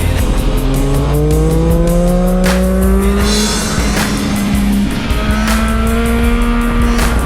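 Motorcycle engine pulling hard, its pitch climbing and then breaking off at a few gear changes, with music playing over it.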